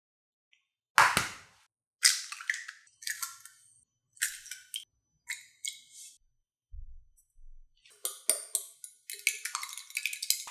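Eggs cracked into a glass saucepan: a sharp knock about a second in, then shell crackles and short knocks. Near the end a small wire whisk beats the eggs against the glass with rapid clicking.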